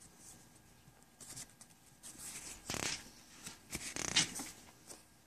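Faint rustling and scraping handling noises in short scattered strokes, louder in the second half.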